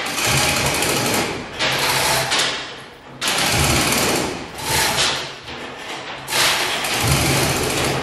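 Chain hoists lifting a boat hull off its mould, running in repeated bursts of a second or so with a low hum under a rattling hiss.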